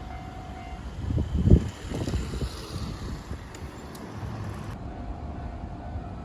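Keio Line electric train rumbling past a level crossing, with a few heavy low thuds about a second in.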